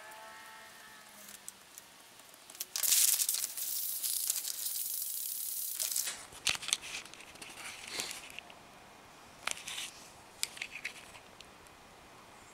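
Paper being handled on a work table: a steady, loud rasping scrape for about three seconds, then scattered rustles and light clicks.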